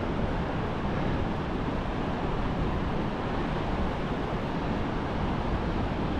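Steady rushing of ocean surf breaking on the beach, mixed with wind buffeting the microphone, with no distinct events.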